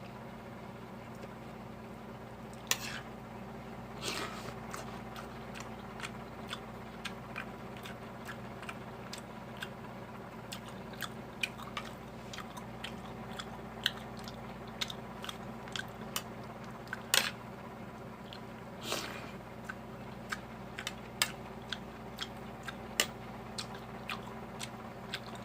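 A person chewing and eating, with many small, irregular mouth clicks and smacks. A steady low hum runs underneath.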